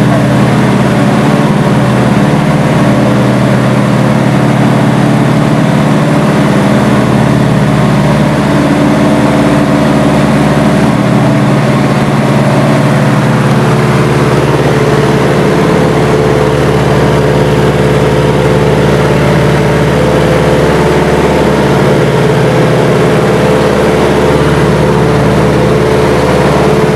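Twin Pratt & Whitney R-985 nine-cylinder radial engines of a Beechcraft C-45 Expeditor droning steadily, heard inside the cabin. The engine note changes about halfway through.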